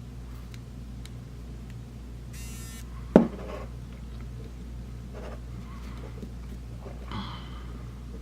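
Plastic opening tool working into the seam of a OnePlus 3's back cover: a short grating rasp, then a single sharp click about three seconds in, with a few faint scrapes after.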